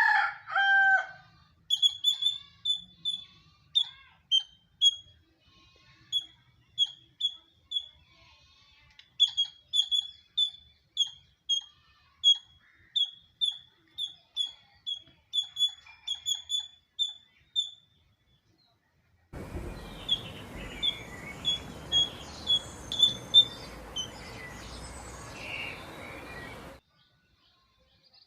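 Squirrel chirping: a long run of short, high, sharp chirps repeated about three times a second. They pause for a second or so and go on over a steady background hiss. A lower two-note call sounds right at the start.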